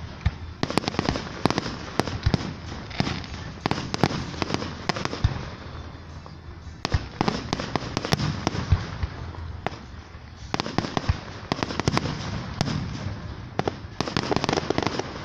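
Aerial fireworks bursting in rapid, overlapping bangs and crackles, in three dense volleys with short lulls about six and ten seconds in.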